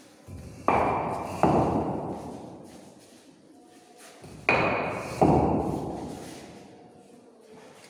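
Interlocking bricks being set onto a dry-stacked wall: two pairs of sharp knocks, the knocks in each pair about three quarters of a second apart, each knock ringing out and dying away over a couple of seconds.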